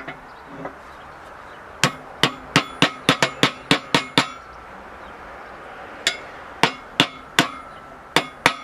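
A small sledgehammer tapping a new 6305-2RS sealed ball bearing into the hub of a Woodland Mills HM126 sawmill bandwheel, metal on metal, each blow ringing briefly. About ten quick taps come in a run of two seconds, then after a pause a second run of taps, as the bearing is driven in by its outer race until it seats.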